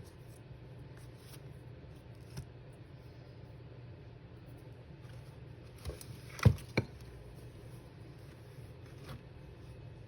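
A few sharp taps and knocks of craft materials and tools being handled on a tabletop, the loudest a quick group of three knocks about six seconds in, over a steady low hum.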